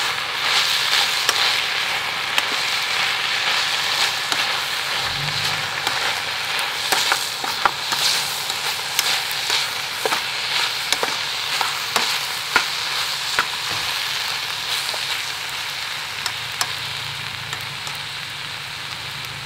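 Keichan-yaki chicken sizzling in a pan over a campfire, with a dense hiss and many sharp spitting pops; the sizzle gradually quietens toward the end.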